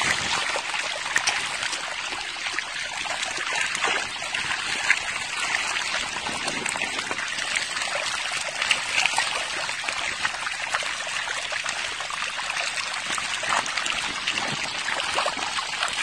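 Shallow stream water trickling and running over stones and gravel in a low, nearly dried-up stream bed, steady throughout, with many small sharp splashes and ticks scattered through it.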